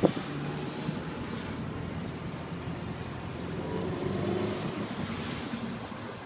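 Honda S2000 on the move with a steady road and running noise, and a high scraping hiss from the rear brakes that comes in about four and a half seconds in: the brake pad wear sensor rubbing on the rotor, the sign that the rear pads are worn down. A sharp click sounds right at the start.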